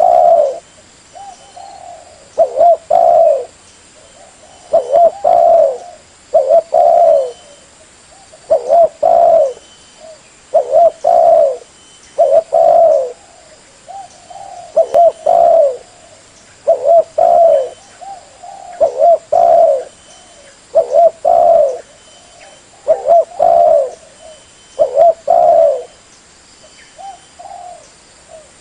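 Spotted dove (tekukur) cooing: short phrases of two or three low coos, repeated about every two seconds. This is the call used as a lure to draw wild doves in.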